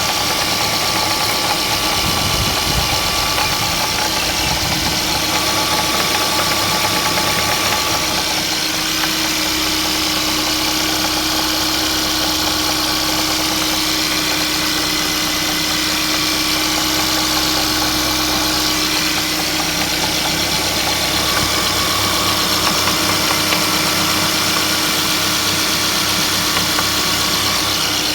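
Mercedes-Benz C180's M274 four-cylinder petrol engine idling cold, with the extraneous noises that appear on a cold engine. About eight seconds in, the running changes and a steady hum sets in.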